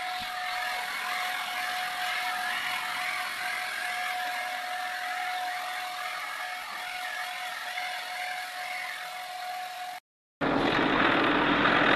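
Handheld electric paint spray gun running steadily with a high whine over a hiss as it sprays black paint. It cuts off abruptly about ten seconds in, and after a brief gap a louder tractor engine is heard running.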